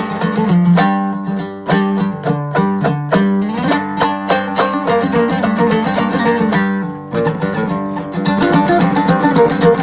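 Background music led by a plucked string instrument playing a quick run of picked notes.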